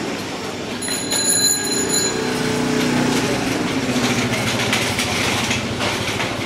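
A motor scooter's small engine runs close by over the general noise of a busy market crowd, with a brief high ringing tone about a second in.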